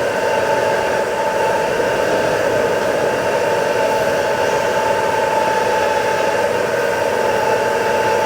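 A machine running steadily: a constant hiss with a steady whine.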